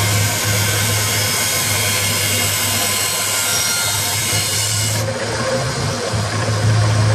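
A 1x30 belt sander running with a steady motor hum while a steel sword blade is ground against the belt, a hissing grind as the blunted edge is taken down. About five seconds in the grinding stops as the blade comes off the belt, and the sander's motor keeps running.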